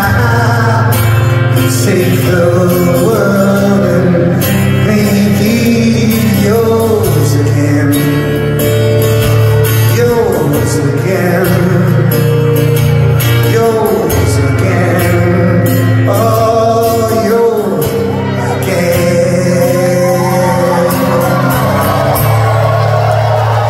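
Live rock song played by a band with acoustic guitar and a male singing voice, recorded from the audience.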